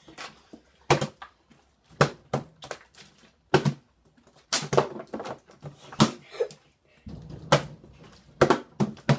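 Partly filled plastic water bottles being flipped and landing on a hard countertop: a dozen or so sharp knocks and thuds at irregular intervals as the bottles hit, bounce and topple.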